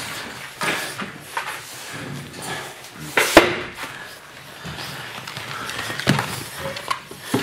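Golden retriever puppies scuffling over a wooden-backed brush on a wooden floor: scattered knocks, scrapes and paw taps, with one louder knock about three seconds in.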